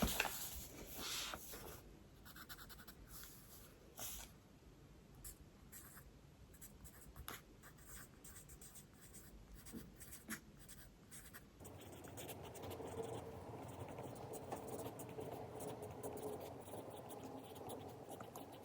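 A pen scratching on paper in many short, quick strokes. About two-thirds of the way through, it gives way abruptly to a steady background hum.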